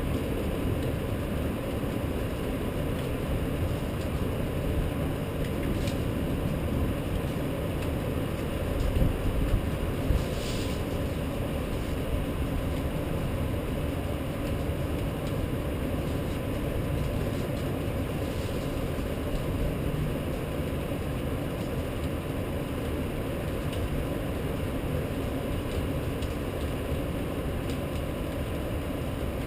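Steady low rumble of a rainy city night, rain with traffic noise, with a few short knocks about nine to ten seconds in.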